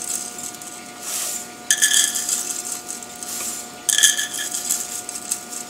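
Dry rolled oats pouring from a glass jar into a plastic measuring cup over a glass bowl: a rustling hiss in three pours, with light clinks of cup and glass at the start of the later ones.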